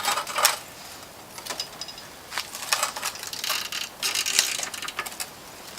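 Bursts of rapid metallic clicking from a ratchet wrench and hand tools working on exhaust bolts: one group at the start, another about halfway, and a longer one about two-thirds of the way in.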